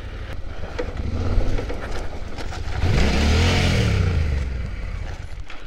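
Adventure motorcycle engine running on a dirt trail; about three seconds in the revs rise and fall with a rush of dirt and gravel as the front tyre digs in on an off-camber slope and the bike goes down.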